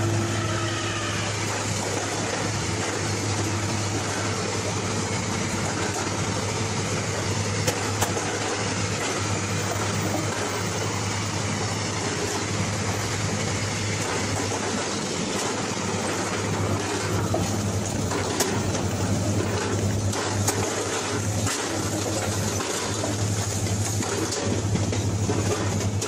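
Railway track-laying machine running steadily with a constant low engine hum, and scattered metallic clanks and knocks that come more often in the second half.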